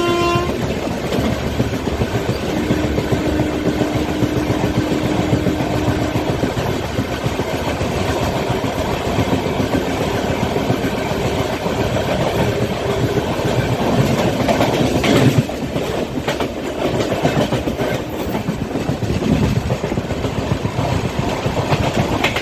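Passenger train running at speed, with wheel rumble and clickety-clack over the rail joints, while a freight train of bulk cement tank wagons passes close alongside on the next track. A train horn stops about half a second in, and there is a sudden louder rush about fifteen seconds in.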